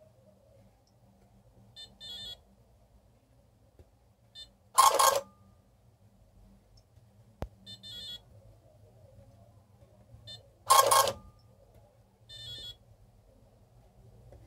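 A small Citizen paper printer on a Fidelity Elegance Chess Challenger prints two lines, each a loud buzzing burst about half a second long, about six seconds apart; the repaired printer circuit is working. Between them the chess computer gives several short electronic beeps, and there is one sharp click.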